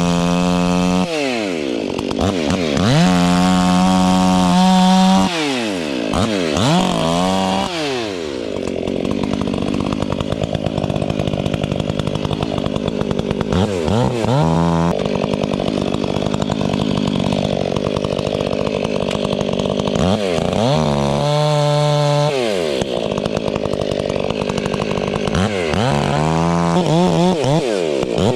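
Chainsaw felling a dead snag: the engine revs up and drops back again and again, with longer stretches of steady running in the cut between.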